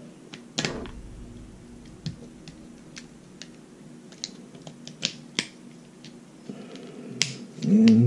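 Scattered sharp plastic clicks and taps as a small screwdriver pries at the housing of an RV stabilizer's rocker switch to pop it apart, the loudest about half a second in.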